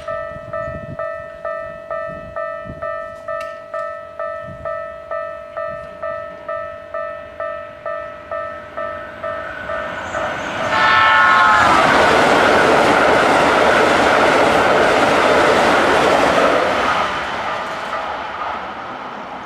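A level-crossing warning bell rings about twice a second. About eleven seconds in, a Keikyu 1000-series electric train gives a short horn blast and passes at speed, with loud wheel and rail noise that starts to fade near the end.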